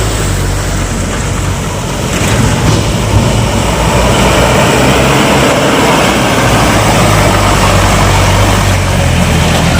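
Motor vehicle's engine running under throttle with a steady rush of road noise over a rough, broken road, growing louder about three seconds in.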